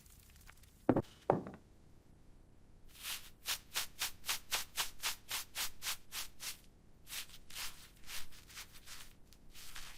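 Two quick knocks, then a rapid series of rubbing or scraping strokes, about four a second, with a brief pause partway through.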